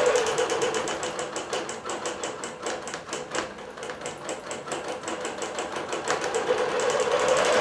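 Bernina Q24 longarm quilting machine stitching a computer-guided border design: a fast, even patter of needle strokes. It grows quieter in the middle and picks up again near the end, where a steady hum returns.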